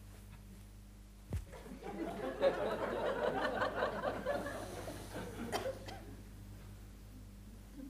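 Studio audience laughing for about four seconds, swelling quickly and then dying away, just after a single low thump. A steady low electrical hum runs underneath.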